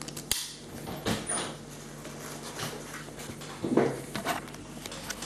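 Handling noises: a sharp click just after the start, then rustling swishes, the loudest near 4 seconds, and a few light clicks near the end, as goalie gear is handled.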